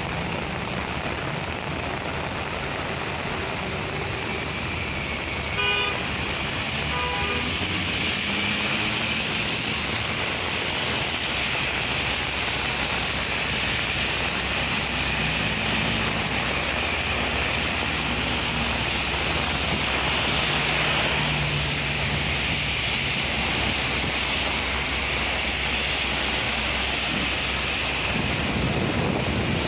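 Heavy rain pouring steadily on a street, with cars passing on the wet road and tyres swishing through water. A car horn toots briefly about six seconds in.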